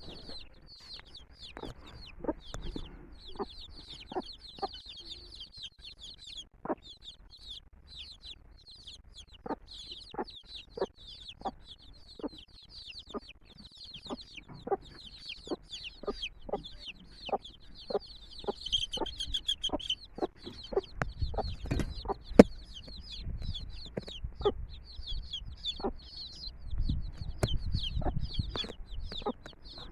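Brood of chicks peeping rapidly and without pause, with a mother hen clucking in short, repeated notes among them. Twice in the second half a low rumbling noise rises underneath.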